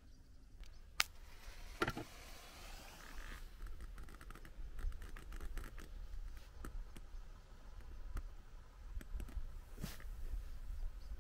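Small campfire of dry twigs crackling, with many scattered sharp pops. A couple of knocks come before it, about one and two seconds in.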